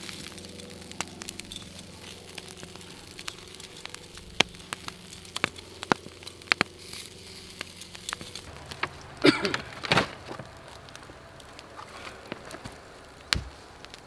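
Wood campfire crackling under a wire grill, with sharp pops scattered throughout. About nine to ten seconds in there is a louder clatter of knocks, and near the end a single thump.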